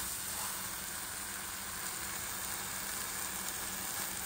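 Thick jackfruit and coconut masala sizzling steadily in a non-stick pan over a gas flame while a wooden spatula stirs it, as the dry curry finishes cooking.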